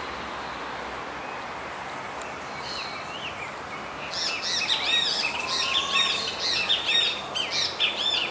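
Birds chirping over a steady background noise; about halfway through, a loud, rapid chatter of many short, high arched chirps breaks out and keeps going almost to the end.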